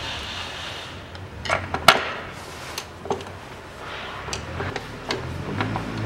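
Scattered metallic clicks and knocks of hand tools and bolts as the rear transmission mount's bolt is started, the sharpest knock about two seconds in.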